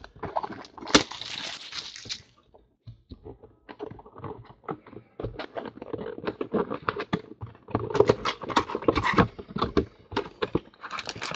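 Cardboard trading-card hobby boxes being handled by hand: slid out of the case, knocked against each other and the table, and the lid lifted open, making a run of scrapes, taps and rustling.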